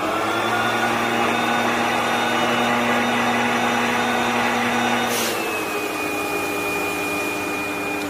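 SEBO Automatic X10 upright vacuum cleaner running with a steady motor hum, while its red bag-check warning is lit; that light signals a full dust bag or a clog in the base. About five seconds in there is a brief rush of noise, and the motor's pitch settles a little lower.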